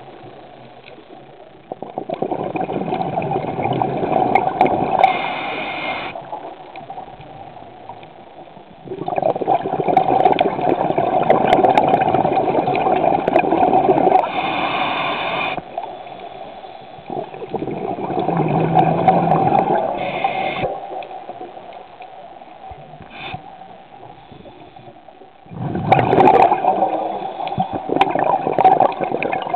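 Scuba diver breathing through a regulator, heard underwater: a short hiss on each inhale, then a few seconds of gurgling exhaled bubbles, repeating about four times in a slow, even rhythm.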